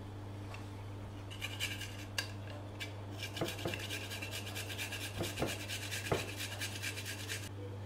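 A garlic clove being rubbed across a small handheld metal grater: a few rasping strokes, then a rapid, even run of short scraping strokes from about three seconds in that stops shortly before the end.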